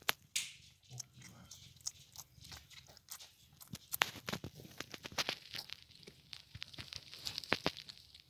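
A kitten crunching food, with rapid, irregular clicks.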